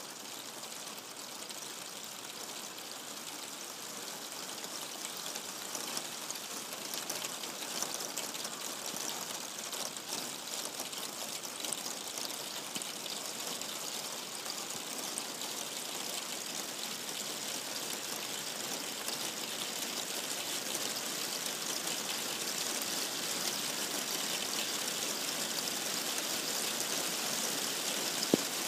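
Heavy rain falling steadily as a hiss that slowly grows heavier, with one sharp click near the end.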